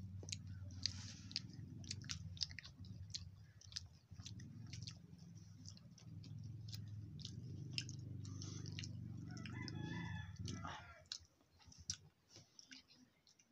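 Close-up chewing and lip smacking while eating banana cue, sticky deep-fried caramelized saba banana: many short wet clicks, over a low background hum that stops about eleven seconds in.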